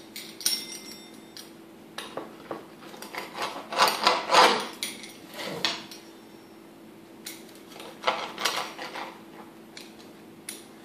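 Metal pizza-cutter wheel rolling through a grilled tortilla quesadilla onto a glass cutting board, in several separate cutting strokes of scraping and clicking metal on glass. The loudest strokes come about four seconds in and again near eight seconds.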